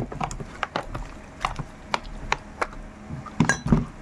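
Raw pork chops being kneaded by hand with seasoning and water in a plastic container: irregular wet smacks and squelches, two or three a second, the loudest right at the start and twice near the end.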